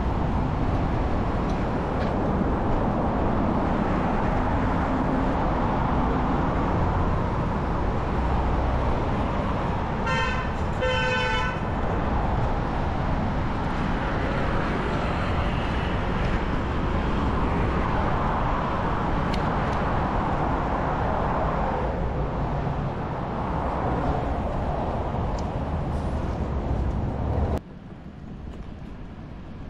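Street traffic and wind rumble on the microphone of a moving bicycle, with a car horn honking twice in quick succession about ten seconds in. The noise drops suddenly near the end.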